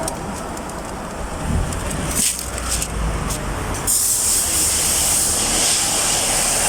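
2020 Toyota Camry hybrid's four-cylinder engine idling roughly with a shaking, uneven rumble: a misfire on cylinder 4. A steady hiss comes in about four seconds in and continues.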